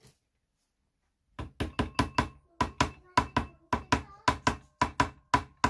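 A quick run of about twenty sharp taps, about four or five a second, starting a second and a half in, made while fitting the hair into a cello bow during a rehair. A faint ringing tone holds under the taps.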